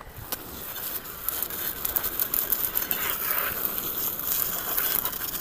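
Steady crackling, rustling noise with many small ticks.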